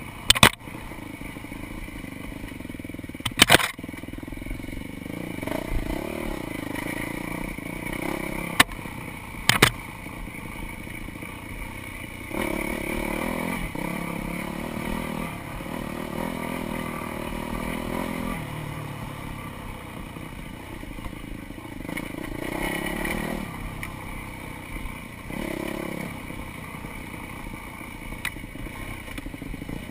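Dirt bike engine running along a trail, its revs rising and falling with the throttle. There are four sharp knocks in the first ten seconds.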